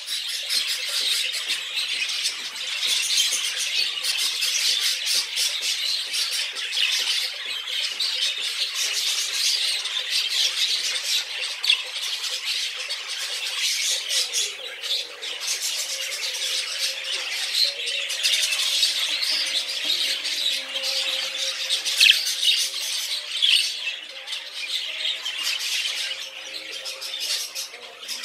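Budgerigar chatter: a continuous, dense warble of chirps and squawks.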